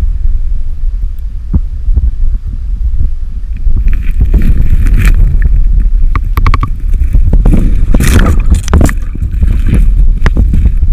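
Heavy, muffled low rumble of river current heard with the camera held underwater in its housing. From about four seconds in, irregular sloshing and knocks join it.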